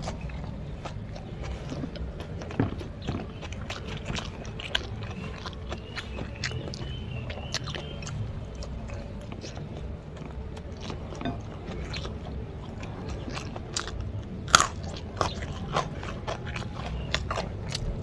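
Close-up chewing and biting of fried rice eaten by hand, with frequent small crisp crunches and clicks. One sharp crunch stands out about fourteen seconds in.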